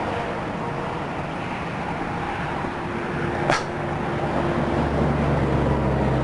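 Steady outdoor road-traffic noise, with one short sharp click about three and a half seconds in and a vehicle's low engine hum swelling in the second half.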